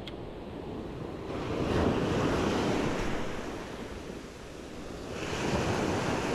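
Small waves breaking and washing up a sand and shingle beach, the surge swelling about a second and a half in and again near the end, with wind buffeting the microphone.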